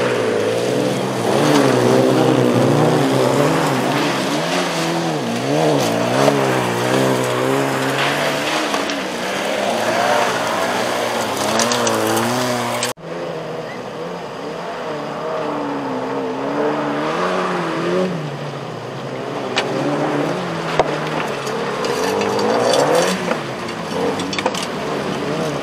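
Volkswagen Golf rallycross cars racing, their engines revving up and down as the drivers change gear and lift through the corners. The sound cuts off abruptly about halfway through and picks up again with more engines revving.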